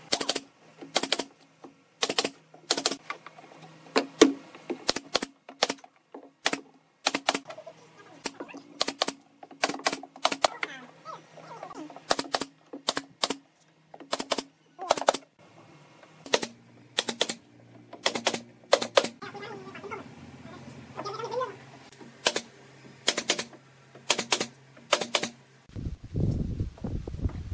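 Pneumatic nail gun firing again and again as it drives brads through thin wooden shingle strips into the birdhouse roof: sharp shots at irregular intervals, often two in quick succession. Near the end the shots stop and a low rumble takes over.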